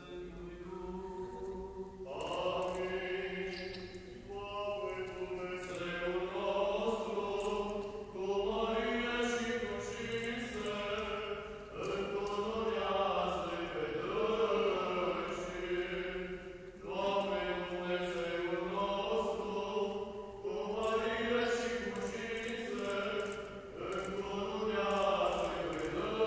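Eastern Orthodox liturgical chant: a sung melody in phrases a few seconds long, held over a steady low drone note.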